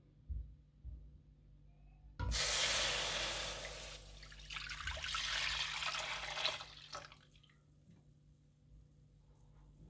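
Milk poured from a glass bowl into a non-stick pan: a steady splashing pour starting about two seconds in and lasting about four seconds, then stopping. A couple of light knocks come before the pour starts.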